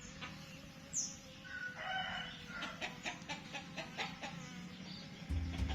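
Chickens clucking and calling in short, sharp notes, with a brief high chirp about a second in. Music with a heavy low beat starts near the end.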